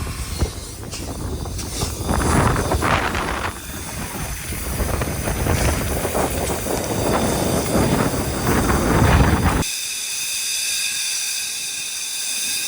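Grain vacuum at work sucking up spilled corn: a loud rushing of air and grain with machinery noise. About ten seconds in it cuts abruptly to a steadier high hiss with a thin whine.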